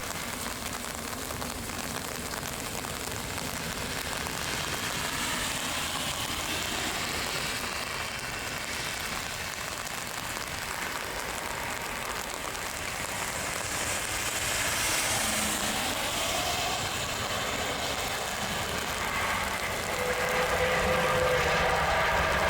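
Airbus A330-200 with Rolls-Royce Trent 700 jet engines on final approach: a steady rushing jet hum that grows louder near the end as the aircraft comes closer.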